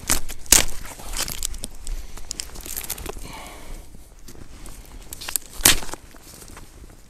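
Dry leaf litter crunching underfoot and dry sticks snapping and knocking as firewood is handled and laid on a campfire, with a few sharp cracks, the loudest about half a second in and near six seconds.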